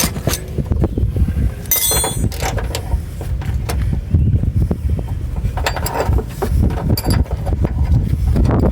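Hand tools and metal parts clinking and knocking while a small 10 mm nut is worked off a brake line, with one bright ringing clink about two seconds in, over a steady low rumble.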